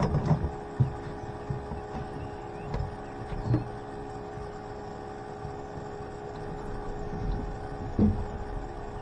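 A steady mechanical hum runs throughout, with a few dull knocks and thumps from someone moving about an aluminum fishing boat; the loudest thump comes near the end.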